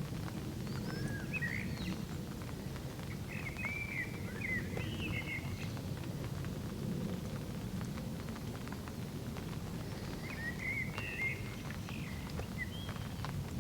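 Steady rain with scattered drips and patters, while a small songbird sings short warbling phrases three times.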